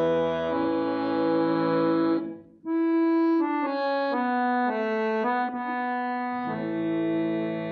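Syrnai, the Kazakh accordion, playing: sustained reedy chords that break off about two and a half seconds in, then a melody stepping from note to note over a lower part, with full chords returning near the end.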